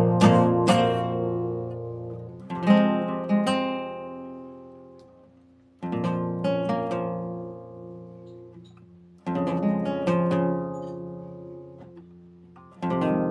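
Acoustic guitar played slowly: chords strummed and left to ring out and fade, a new chord every few seconds, with a few quick strums at the start.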